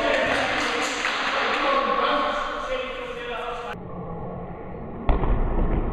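Indoor football in a sports hall: players' shouts and calls echo with scattered knocks of the ball and shoes. About five seconds in comes a sharp thump of a shot being struck, followed by a low rumble.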